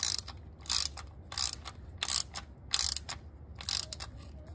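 Socket ratchet clicking in short back-strokes, about six runs of clicks some two-thirds of a second apart, as the drive unit's drain plug is run in and tightened.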